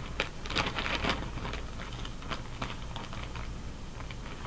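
Clear plastic packaging bag crinkling and rustling in short, irregular crackles as it is handled and opened.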